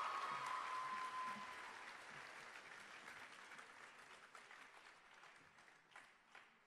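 Audience applauding, dying away gradually, with a drawn-out cheer trailing off in the first second or so and a few last claps near the end.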